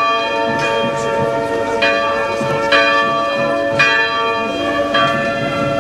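Church bell tolling slowly, a fresh strike roughly every second, each one ringing on over the one before.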